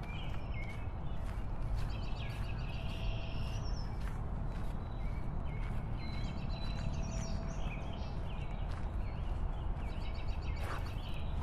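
Steady low rumble of wind and road noise from a slow bike ride along a dirt track. Birds chirp in short, quick repeated phrases several times over it, and there are faint scattered knocks.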